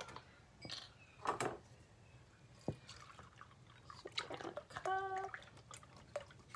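Small handling sounds of a carton of chicken broth being opened: faint clicks and rustles, with one sharper click about three seconds in and a brief steady tone about five seconds in.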